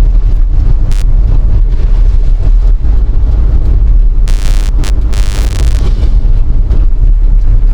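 Strong wind buffeting the microphone: a loud, constant low rumble, with two brief hissing surges about four and five seconds in.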